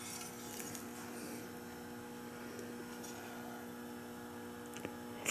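Faint steady electrical mains hum, a few even tones held throughout, with a faint click near the end.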